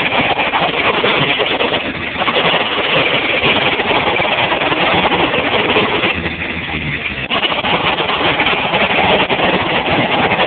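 Jackhammer hammering continuously, a dense rapid pounding, easing slightly about two seconds in and again around six to seven seconds in.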